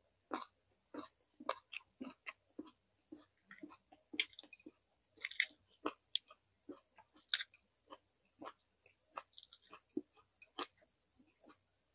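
A person chewing roasted vegetables close to the microphone: a string of short, irregular chewing clicks and crunches, two or three a second.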